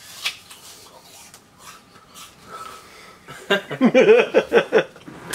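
A man crunching and chewing a bite of apple, then breaking into laughter about three and a half seconds in.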